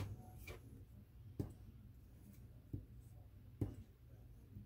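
Light handling taps of craft tools on a cutting mat: a sharp click as a hot glue gun is set down, then three quieter separate taps over the next few seconds as a craft knife is picked up and handled.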